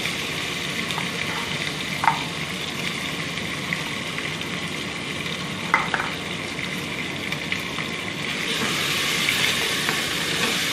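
Onion, garlic and tomato paste sizzling in hot oil in an aluminium pot as a wooden spoon stirs, with a few knocks of the spoon against the pot. The sizzle grows louder near the end.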